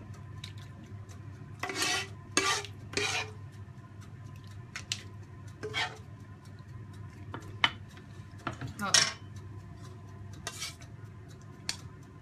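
A metal spoon scraping and knocking against a pan as thick meat sauce is scooped out and dropped onto lasagne sheets: a dozen short scrapes and clinks, the loudest about two, three and nine seconds in, over a low steady hum.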